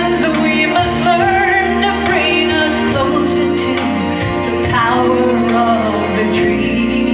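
A woman singing a slow song into a microphone, amplified, over instrumental accompaniment. Her long notes waver with vibrato.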